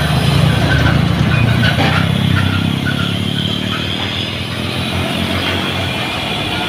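A heavy truck's diesel engine pulling slowly up a steep climb, a loud, low, steady drone that eases a little after about two seconds.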